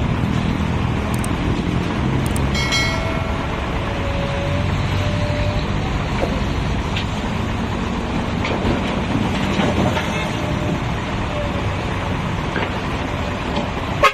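Komatsu backhoe's diesel engine running steadily, with a brief higher tone about two and a half seconds in.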